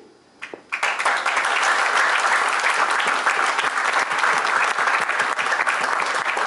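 Seated audience applauding: dense, steady clapping that starts suddenly about a second in, after a brief pause.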